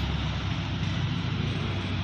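Steady road traffic noise: a continuous low engine rumble with an even hiss and no distinct events.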